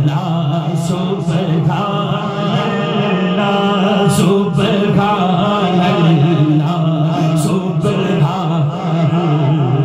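A man singing a Punjabi Sufi kalam in naat style, in long, wavering held phrases, over a steady low drone.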